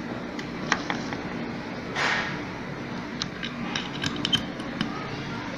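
Small knife blade scraping limescale off the steam iron station's parts: a short scrape about two seconds in, with light clicks and ticks of the blade against the metal before and after.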